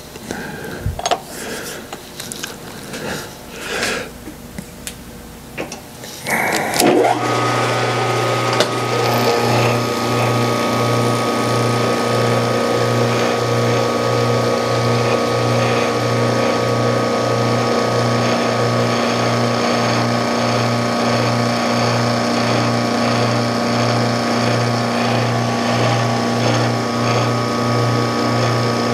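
Metal clatter and knocks as aluminium strips are set in a milling-machine vise. About seven seconds in, the mill's spindle motor starts and runs steadily, with a low hum that throbs in an even rhythm a little faster than once a second.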